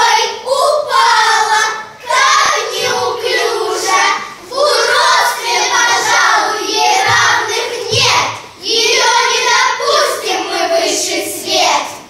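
Children's voices singing together as a chorus, in sung phrases broken by short pauses.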